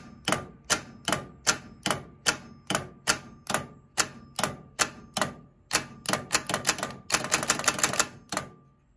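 Delco 29MT starter solenoid clacking over and over, about two or three times a second, then quickening near the end into a rapid chatter that stops suddenly. The plunger pulls in but the motor does not spin, which the owner takes for a failure inside the starter that keeps it from making the electrical connection.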